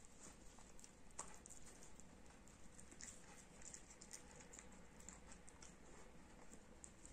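Dog chewing and gnawing at a plush toy: faint, irregular small clicks and rustles of teeth working at the fabric and stuffing.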